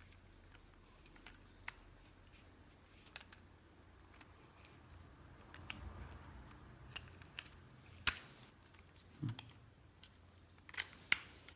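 Scattered clicks and taps of hard plastic parts of a Bosch AQT 33-11 pressure washer being handled and fitted, with a sharp click about eight seconds in and a few more near the end.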